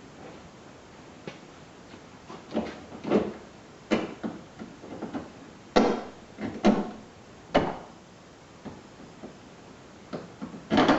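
Irregular knocks, clicks and clunks of hands and tools working on the door-handle hardware inside a pickup truck's door. The sounds come in uneven bunches from about two seconds in, loudest in the middle.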